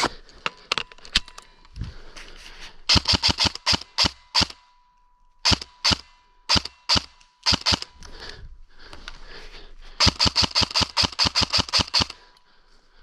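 Airsoft rifle firing in sharp cracks: a quick burst about three seconds in, a few single shots in the middle, and a longer burst of about ten shots a second near the end.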